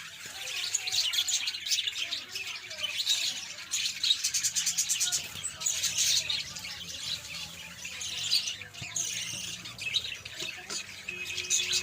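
Parrots calling together: a dense run of overlapping high chirps and squawks that continues throughout.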